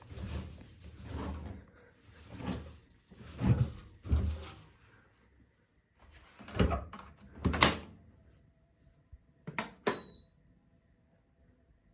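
A Candy washing machine being handled: a run of thumps and rustles, two louder bangs about seven seconds in such as its door being shut, then two clicks near ten seconds, the second with a short high beep from the control panel.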